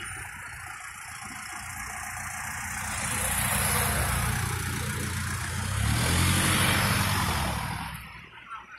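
Traffic passing close on a paved road: a car sweeps by about four seconds in, then a second vehicle's engine and tyres swell louder and fade away near the end.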